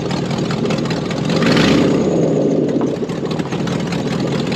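Pickup truck's engine running rough, thought to have no exhaust fitted. It revs up for a second or so about a second and a half in as the truck climbs the trailer ramps.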